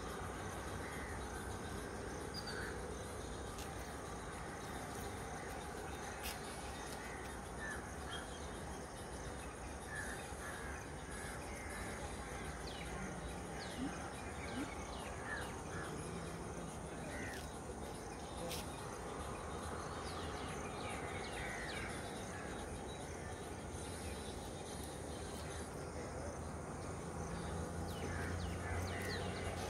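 Birds calling over and over in short calls, over a steady low background rumble; near the end a low hum grows louder.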